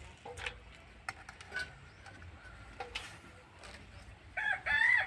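A rooster starts crowing near the end: one long, loud call with an arched pitch. A few faint clicks come before it.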